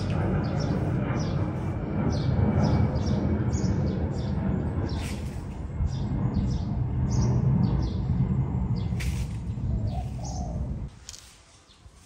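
Birds chirping over and over in quick short calls, above a loud low rumble that cuts off suddenly near the end.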